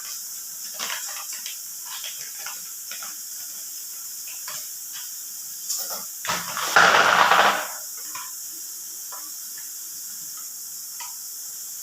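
Packaging being handled and opened, with scattered small crinkles and clicks over a steady hiss, and one loud rush of rustling noise lasting about a second midway through.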